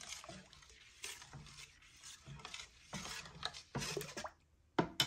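Thick, freshly drained rice-flour batter being stirred in a stainless steel pot: a run of wet stirring strokes, about two to three a second, with two sharp clicks near the end.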